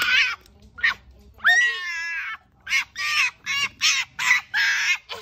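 Husky puppy's high-pitched vocalising: a few short cries, then one long drawn-out cry about a second and a half in, then a quick run of short yips, about three a second.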